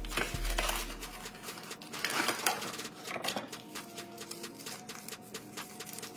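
Foil wrapper of a block of cream cheese being peeled open and crumpled by hand: a rapid run of small crinkles and crackles, loudest about two seconds in.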